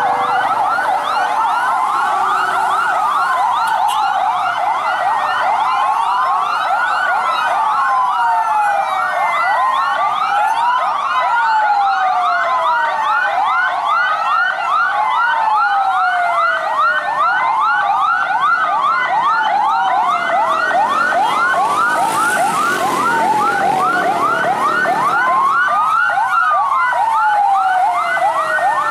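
Several emergency-vehicle sirens sounding at once, overlapping. Slow rising-and-falling wails mix with fast yelping sweeps. A short rush of noise comes about two-thirds of the way through.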